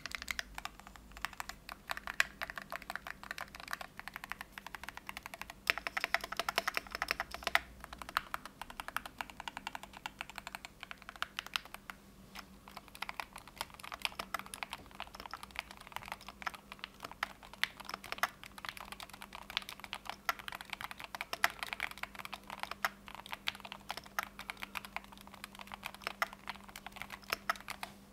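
Fast, continuous typing on a Keychron Q1 HE keyboard with Hall-effect magnetic switches, fitted with thick-walled dye-sub PBT Cherry-profile XMI keycaps: a dense run of key clacks.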